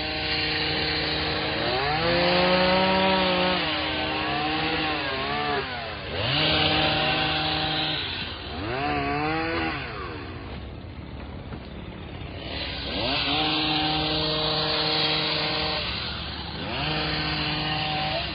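Gas chainsaw cutting tree limbs, its engine pitch rising and dipping over and over as it cuts, with a quieter lull about halfway through.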